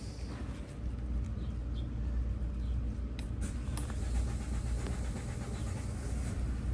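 Volvo Penta D3-150 marine diesel engine running steadily at low speed, with a couple of faint clicks about three seconds in. This engine has a fault where it starts hard and then stops after running a few seconds.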